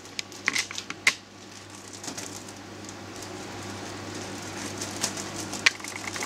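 Kitchen scissors snipping into a crinkly plastic oven roasting bag: several crisp clicks and crackles in the first second or so and a couple more near the end, over a faint steady hiss.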